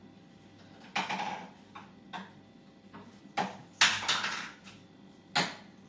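Kitchenware clattering: about five sharp knocks and clinks of utensils or containers against a cooking pot or counter, each ringing briefly, the loudest just under four seconds in.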